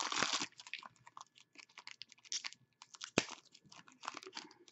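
Foil trading-card pack wrapper being torn open and crinkled by hand, with a dense rustle at the start, then scattered light crackles as it is peeled back from the cards, and one sharp click a little past three seconds in.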